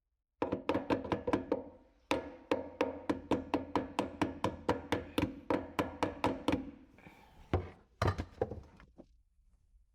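Small hammer tapping on the metal mounting of an old kitchen garbage disposal, about four quick ringing strikes a second, to knock a tabbed part loose; a pause, then a few more blows near the end.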